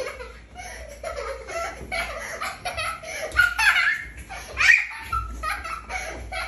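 Young girls laughing and giggling during rough play, with the loudest, highest laughs about halfway through.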